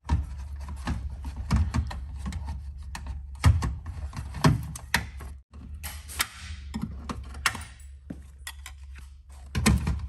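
Irregular clicks and clatter of small hardware and parts being handled, with a brief rustle about six seconds in, over a steady low hum.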